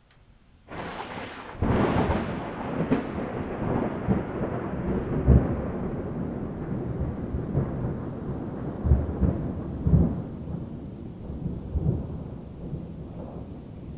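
Thunder: a sudden crack about a second and a half in, then a long rolling rumble with low thuds that slowly fades.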